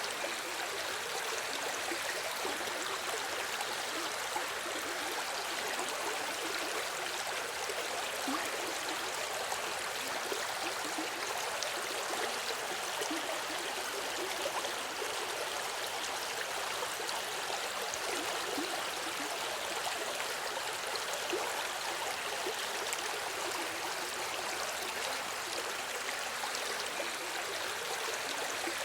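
River water flowing steadily, a continuous rushing with light gurgles and small splashes.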